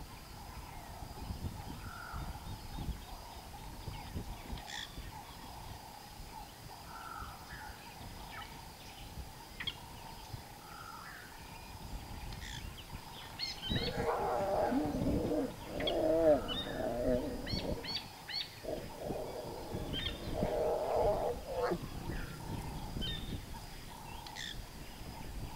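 A mating pair of lions growling, a run of loud growls starting about halfway through and lasting some eight seconds, over faint bird chirps.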